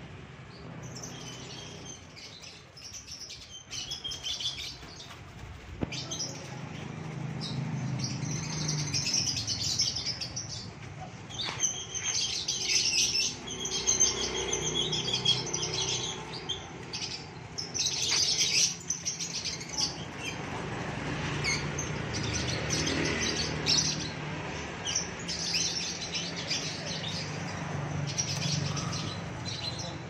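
Many caged birds chirping and twittering together in quick, overlapping calls, with wing flaps now and then.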